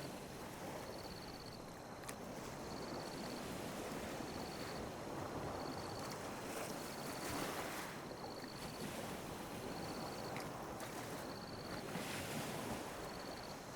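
Small sea waves lapping and washing on a beach, swelling about halfway through and again near the end. A faint high chirp repeats about once a second throughout.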